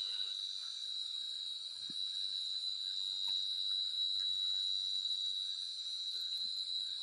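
Chorus of night insects: one steady, high-pitched drone that does not let up, with a few faint small knocks beneath it.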